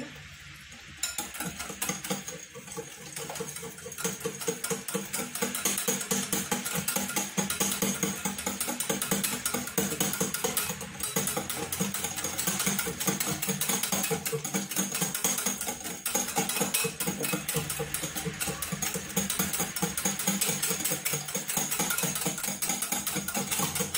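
Wire hand whisk beating thin cake batter in a glass bowl: a fast, steady run of clicks as the wires strike the bowl, starting about a second in. The batter is thinned with milk.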